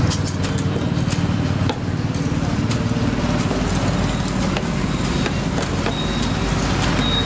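Steady road-traffic and engine hum, with scattered sharp knocks roughly once a second.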